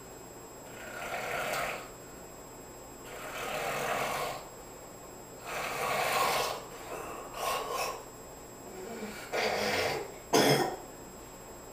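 A person asleep and snoring, with a noisy breath about every two seconds. A short, sharp, louder burst comes near the end.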